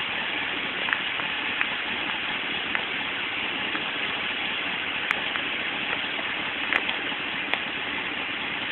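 Steady hiss of rain, with scattered drops ticking close by, heard through a low-quality phone microphone.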